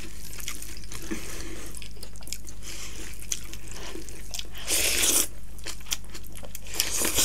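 Close-miked eating sounds: hands squishing and mixing rice with curry, with wet chewing and lip smacks in quick, irregular clicks. There is a louder wet squelch about five seconds in and another near the end.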